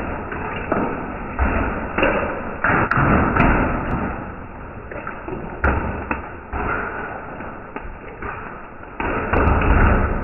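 Hail striking a concrete patio, slowed down with the slow-motion footage: irregular thumps, each fading out, over a steady hiss.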